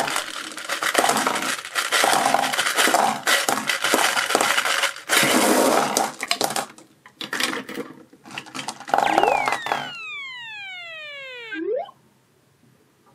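Many small hard plastic balls pouring out of a plastic bottle and clattering, bouncing and rolling across a tabletop, thinning out after about seven seconds. About nine seconds in comes a long falling whistle sound effect that drops in pitch over some three seconds and then cuts off.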